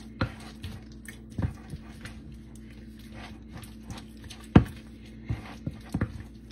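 A spoon stirring thick pimento cheese dip in a glass mixing bowl: soft squelching with irregular knocks of the spoon against the glass, the loudest about four and a half seconds in.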